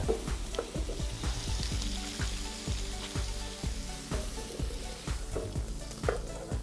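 Mussels sizzling in oil on the hot steel plate of an OFYR grill, a steady hiss as their juices turn to steam. A soft low thump comes about twice a second underneath.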